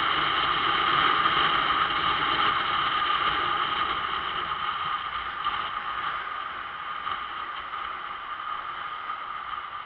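Steady riding noise heard from a moving motorcycle: wind, engine and traffic, with a passenger train rolling along the track beside the road. The noise eases off gradually as the bike slows.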